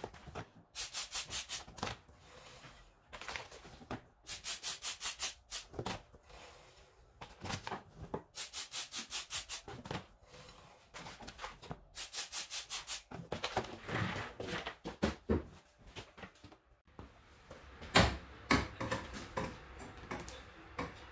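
Aerosol chain lube sprayed onto a motorcycle chain in four bursts of about a second and a half, each a fast pulsing hiss, while the rear wheel is turned by hand. In the last few seconds come scattered clicks and a loud knock as the bike lift is worked.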